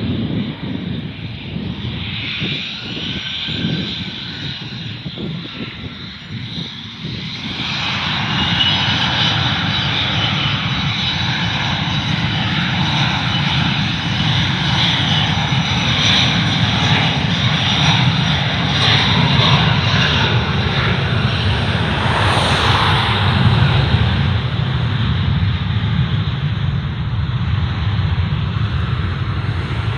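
Airliner's jet engines running, growing louder about eight seconds in and then staying loud, with a high whine over a low rumble as the plane passes close.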